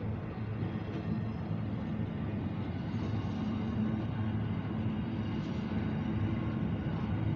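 Freight train's container wagons rolling slowly past close by, a steady low rumble of wheels on rail with a few faint clicks.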